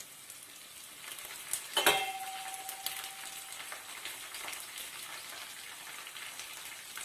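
Onion, dal and chilli tempering with fresh fenugreek leaves frying in oil in an aluminium pot, a steady sizzle, stirred with a steel ladle. About two seconds in the ladle strikes the pot with a clang that rings on for a second or so.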